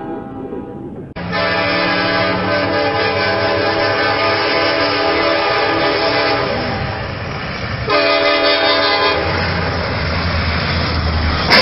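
Freight locomotive's air horn blowing a long, steady blast, then a second short blast about eight seconds in, with the rumble of the train between and after. A sharp bang comes right at the end.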